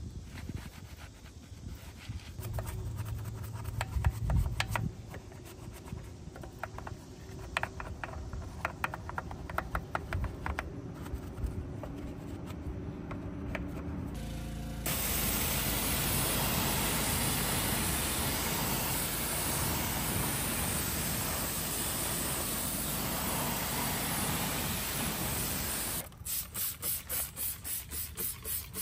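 Wheel brush scrubbing a soapy alloy car wheel, with scrapes and light taps against the spokes. About halfway through a steady, louder spray hiss starts and runs for around ten seconds. Near the end a trigger spray bottle squirts rapidly, about three pumps a second.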